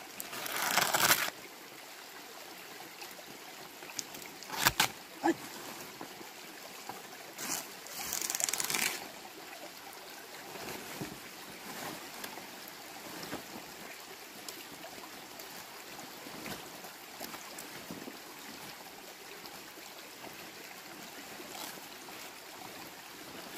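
Large banana leaves rustling as they are handled and pulled, in loud bursts about a second in, near five seconds and around eight to nine seconds, over a steady background rush of running water.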